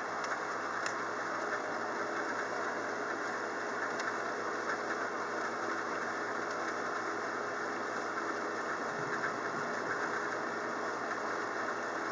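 Steady rain from a thunderstorm, an even hiss with a few faint ticks.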